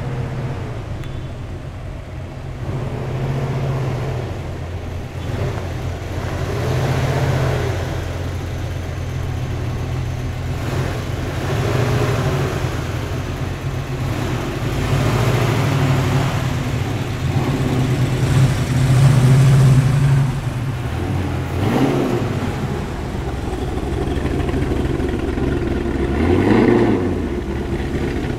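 A slow procession of cars driving past one after another, among them a Corvette Stingray, a Chevrolet Nova SS and a 1960s Ford Ranchero, their engines running at low speed and swelling as each goes by. One engine revs up briefly near the end.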